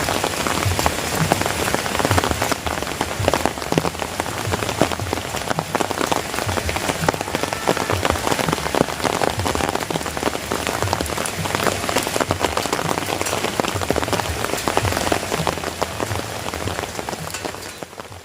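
Heavy rain falling steadily, a dense patter of countless drop strikes, fading out near the end.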